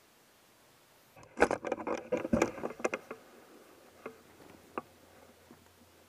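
A quick clatter of small hard clicks and knocks lasting under two seconds, like hand tools and small parts being handled, followed by two single clicks.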